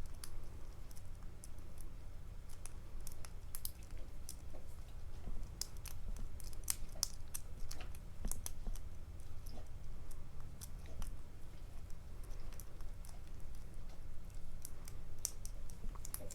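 Lock pick and tension wrench working the pins of a MAKO SFIC lock core: faint, irregular small metallic clicks and scrapes, over a low steady hum.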